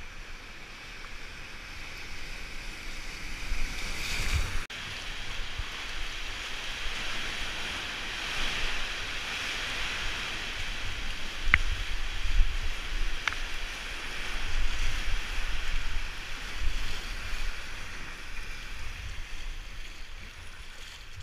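Choppy sea water sloshing and surging around a sea kayak as it is paddled, with wind buffeting the microphone. There is a brief break about four and a half seconds in, and two short sharp clicks a little past the middle.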